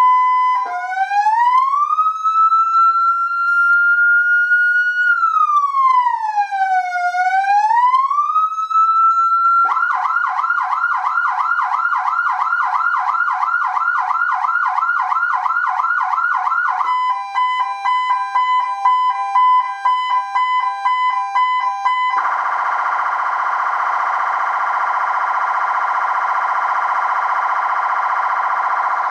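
Electronic car siren played through a 200 W horn loudspeaker, stepping through its tones. First comes a slow wail that rises, falls and rises again. About ten seconds in it switches to a fast yelp of roughly four sweeps a second, then to a rapid two-note warble around seventeen seconds, and then to a steady harsh, buzzy horn tone for the last seven seconds.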